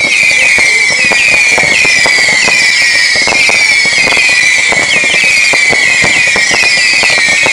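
Whistling fireworks shrieking without a break: a high whistle that pulses about three times a second and slowly sinks in pitch, jumping back up now and then, over a steady crackle of small bangs.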